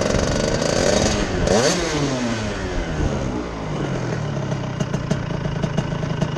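Stock Honda CR125 two-stroke single-cylinder engine of a shifter kart revving up and down in short blips, then dropping to a steady idle about four seconds in.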